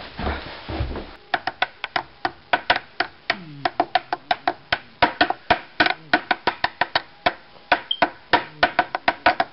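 A person making a long run of sharp, dry percussive clicks, about five a second in an uneven rhythm, after a brief rustle of movement.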